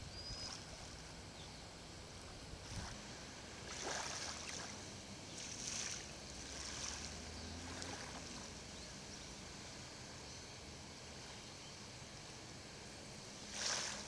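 Calm, shallow seawater lapping faintly at the shore, with a few brief soft splashes.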